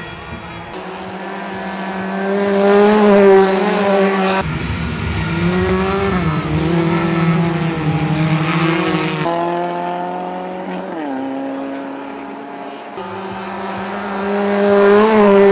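Ford Laser gravel race cars racing, their engines revving, the pitch climbing and dropping as the drivers work through the gears and corners. The sound jumps abruptly between shots and is loudest about three seconds in and again near the end.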